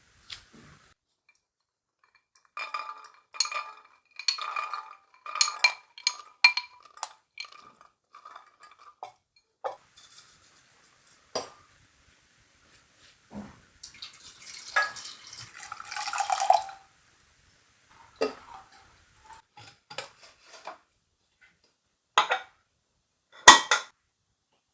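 Kitchen dishes and utensils being handled: a run of ringing clinks of metal or glass, scattered knocks, and water running briefly in the middle. A sharp, loud knock comes near the end.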